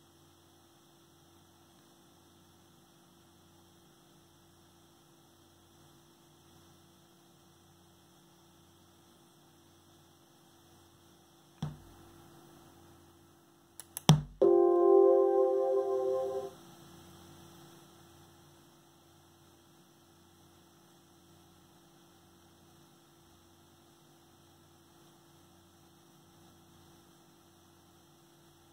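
Built-in speakers of a Hansung 2779UH monitor giving a faint steady hum and hiss, then a sharp pop about a dozen seconds in as the speaker output cuts out, the monitor's recurring popping fault. About two seconds later, after a few clicks, a loud Windows volume chime rings for about two seconds as sound is switched back on, and the faint hum and hiss return.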